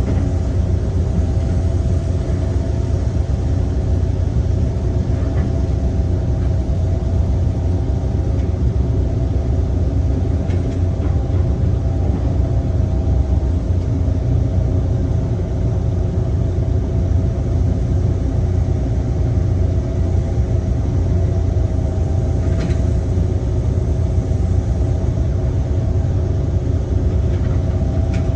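Heavy construction machinery's diesel engine running steadily, strongest in the low end, with a few faint knocks over it.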